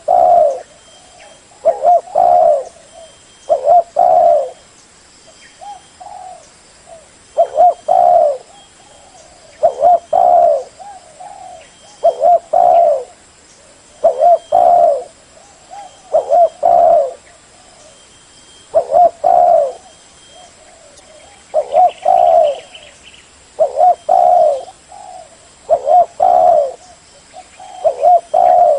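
Spotted dove cooing: a short phrase of a few low coos, repeated about every two seconds.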